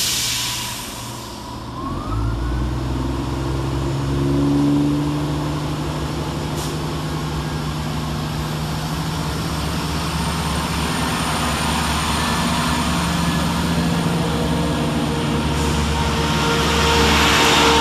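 Class 168 diesel multiple unit pulling away from the platform: a short hiss at the start, then about two seconds in its underfloor diesel engines open up and run steadily under power, their note slowly rising as the train gathers speed.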